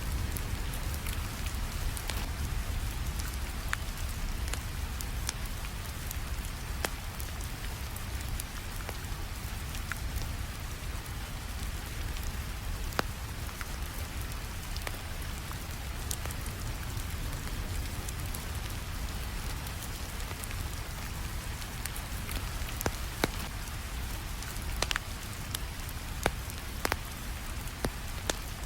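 Steady rainfall with a low rumble, and a wood fire crackling on top: scattered sharp pops that come more often near the end.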